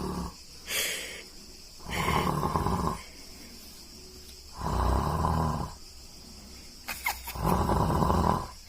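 A man snoring in his sleep: three long snores about three seconds apart, with a shorter, softer breath sound between the first two.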